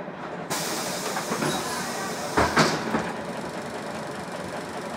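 Jelcz 120M city bus's pneumatic doors opening: a sudden hiss of released air about half a second in, then a loud clunk about two and a half seconds in as the door leaves swing fully open.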